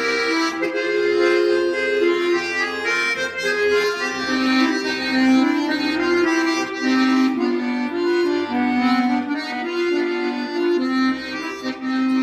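Accordion playing a melody over sustained chords, an instrumental break in a slow song with no singing.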